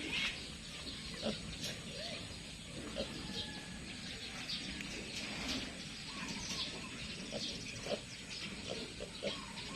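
Pigs and piglets in the pens making many short, scattered squeaks and grunts over a steady background hiss.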